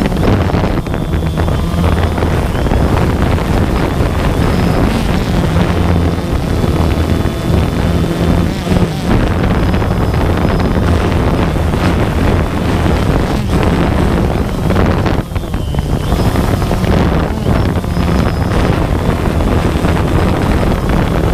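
Multirotor drone's motors and propellers humming steadily, heard from its own onboard camera, with the pitch shifting a little as it manoeuvres. Wind buffets the microphone.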